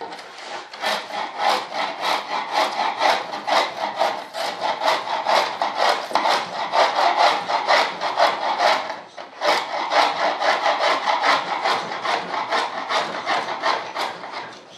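Rapid back-and-forth rubbing or scraping strokes worked by hand across the foam core of a model-jet wing, about four strokes a second, with a brief pause about nine seconds in.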